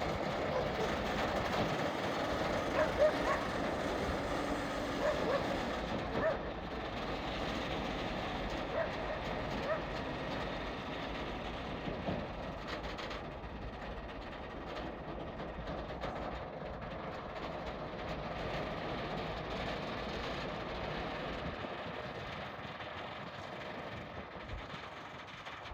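SM42 diesel shunting locomotive moving a rake of Eas open coal wagons: a steady rumble of engine and rolling wagons, with a few brief louder knocks or cries in the first half, slowly fading away near the end.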